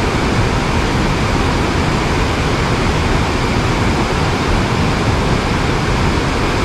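Mountain stream rushing steadily, running high with extra water.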